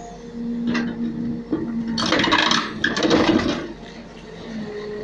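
JCB backhoe loader working, with a steady hum from its engine and hydraulics. From about two seconds in, the steel bucket scrapes through soil and stones with a loud rattle that lasts about a second and a half.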